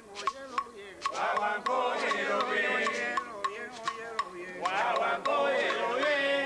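Men singing a guaguancó rumba chorus, with sharp percussion clicks keeping a quick, even rhythm. The singing drops away briefly at the start and comes back about a second and a half in.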